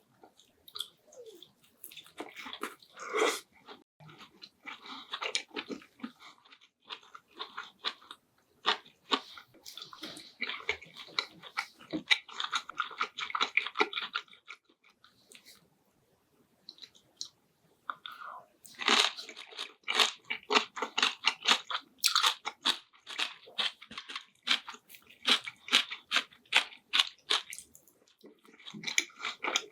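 A person chewing and biting food close to the microphone: a dense run of wet clicks and crunchy bites, broken by a short pause about halfway through before the chewing picks up again.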